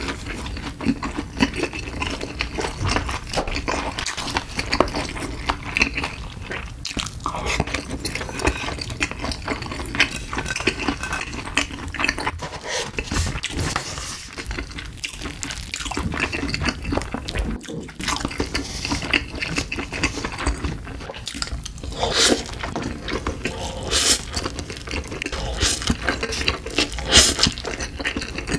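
Close-miked eating sounds: wet chewing and mouth clicks, sipping liquid from a cup of Buldak ramen, and slurping its spicy noodles, with light clinks of chopsticks and plastic containers.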